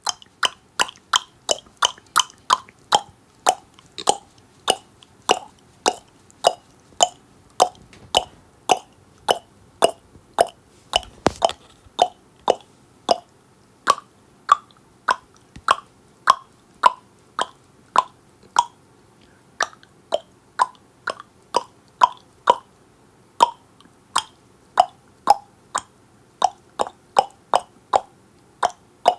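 Tongue clicks, one after another at roughly two a second with uneven spacing, each a sharp hollow pop whose pitch shifts a little from click to click.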